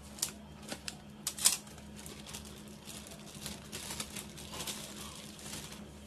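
Plastic food-storage bag crinkling and rustling as marinated chicken thighs are handled, with a few sharp clicks and taps in the first second and a half.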